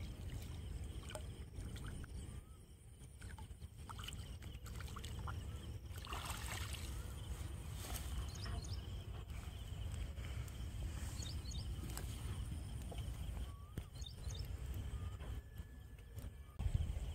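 Low wind rumble, with a burst of splashing about six seconds in as a hooked fish is pulled from the water into a landing net, and a few faint bird chirps.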